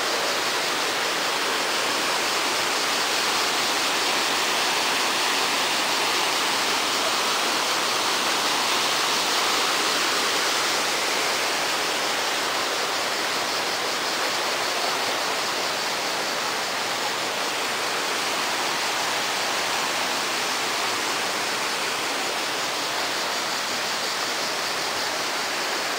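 Steady rushing of the White Drin's water at its spring, a constant even hiss of fast-flowing water with no breaks.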